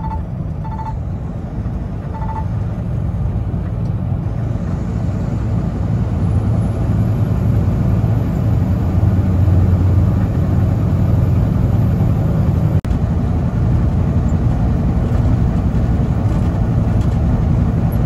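Semi-truck engine and road noise heard from inside the cab while driving at highway speed: a steady low rumble that grows louder over the first several seconds.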